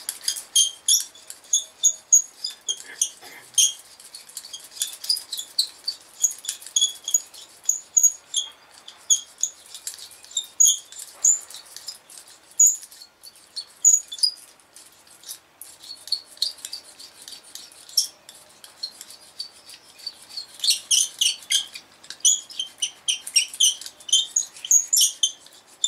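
Tire-patch stitcher rolled back and forth over a freshly glued patch inside a truck tire, making quick, irregular high squeaks and clicks that come in clusters, thickest near the end. The rolling presses the patch onto the vulcanizing cement and squeezes out trapped air.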